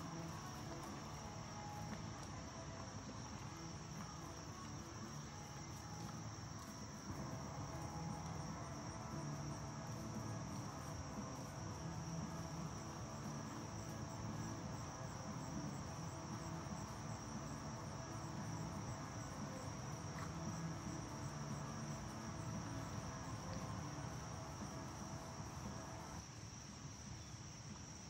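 A steady chorus of field insects, crickets, trilling as a continuous high buzz over a low steady background rumble.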